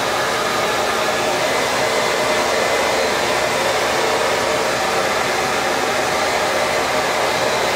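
Small handheld pet hair dryer running steadily, a rush of air with a faint motor whine, blowing over a damp Pomeranian's coat.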